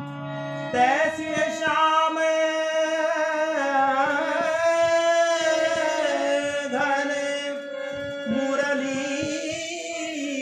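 Devotional kirtan music: a voice sings a melodic line over a steady held drone, the singing starting about a second in.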